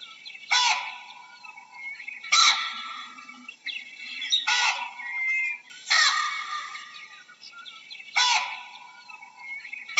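Baboon barking: five loud calls, each starting suddenly and fading quickly, spaced about two seconds apart.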